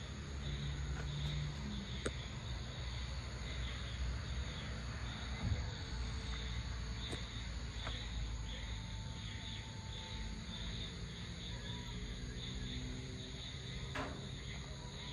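Evening insect chorus, crickets chirring steadily in a high, finely pulsing band, over a low rumble, with a few faint clicks.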